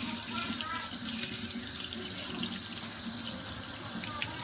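Kitchen faucet running steadily into a stainless sink, the stream splashing onto a Swedish dishcloth held under it.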